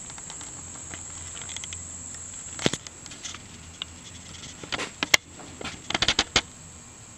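Handheld camera handling noise: scattered small clicks and rustles, with a tight cluster of clicks in the second half. Under them runs a steady faint high-pitched whine and a low hum.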